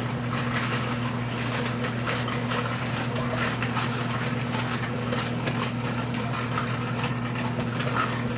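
Water swishing in a plastic gold pan as black-sand concentrate is swirled, over a steady motor hum.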